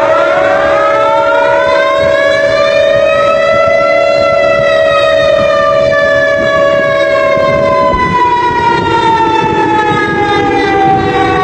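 Civil defense siren winding up in pitch for about four seconds, then slowly winding down. A separate steady tone sounds beneath it and cuts off about eight seconds in.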